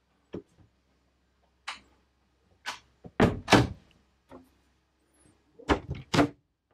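A series of wooden knocks and thuds in a small boat cabin, loudest a pair about three seconds in and a cluster near the end: a cabin door being handled and footsteps on wooden steps.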